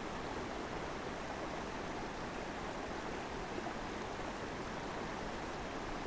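Creek water running: a steady, even rush of water with no change in level.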